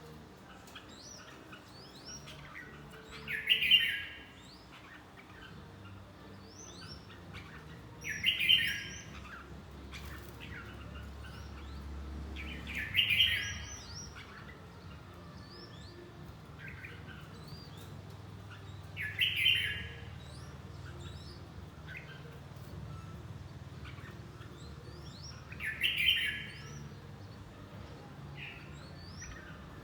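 Red-whiskered bulbul singing: five loud short phrases, one about every five to six seconds, with softer chirps in between over a low background hum.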